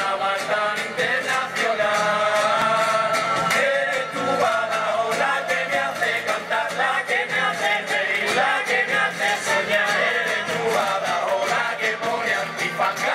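A carnival murga chorus of men singing in harmony, accompanied by guitar and a regular percussion beat.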